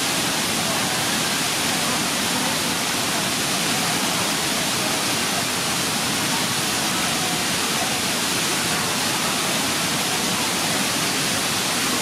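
Waterfall and river water rushing steadily: an even, unbroken noise that holds at one level throughout.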